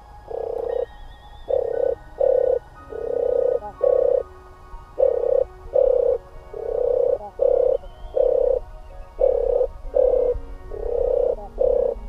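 European turtle dove singing: a series of deep purring coos, about fourteen short notes in loose groups of two or three.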